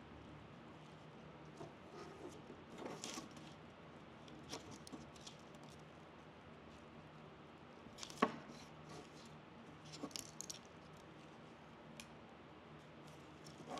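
Soft rustling and crackling of evergreen sprigs and dried moss being handled and pressed onto a wreath frame, with scattered light clicks and one sharper click about eight seconds in.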